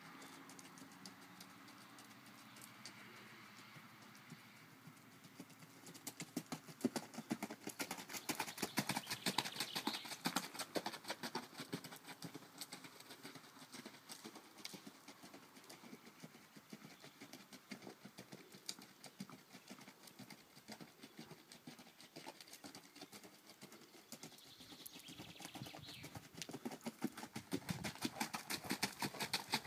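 Rapid hoofbeats of a ridden Icelandic horse on a dirt track. They grow loud as the horse passes close, about six to eleven seconds in, fade, and grow loud again near the end.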